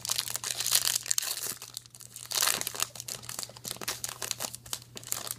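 Foil trading-card pack wrapper crinkling and tearing as it is ripped open by hand. A dense crackling runs for about two seconds, stops briefly, then comes again, followed by scattered crackles as the wrapper is pulled apart.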